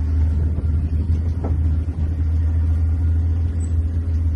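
Open safari game-drive vehicle's engine running with a steady low rumble as the vehicle drives.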